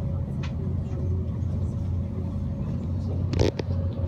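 Cabin noise of an ICE high-speed train running at speed: a steady low rumble with a faint steady tone above it, and a brief clatter about three and a half seconds in.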